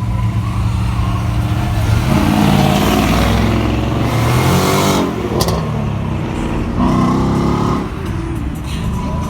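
Car exhaust revving hard as the car pulls away, the engine note rising and falling, with a single sharp backfire pop just past halfway and another short rev about two seconds later.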